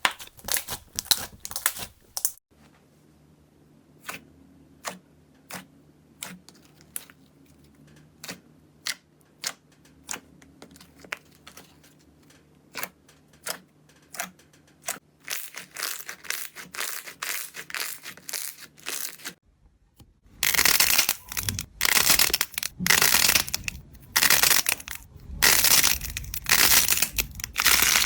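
Slime being pressed and squished by hand: sticky clicks and pops, sparse through the middle over a faint low hum. Near the end come loud repeated crunching squeezes about once a second.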